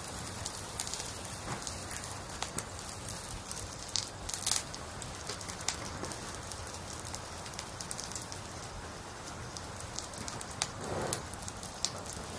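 Burning firewood in an open campfire crackling and popping in many sharp snaps, over the steady rush of a flowing valley stream.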